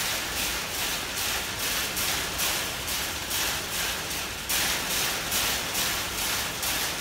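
A chimpanzee rhythmically banging on the metal bars of its cage, about two rattling strikes a second, louder from about halfway. This is a stereotypic repetitive behaviour (zoochosis) of a captive chimpanzee.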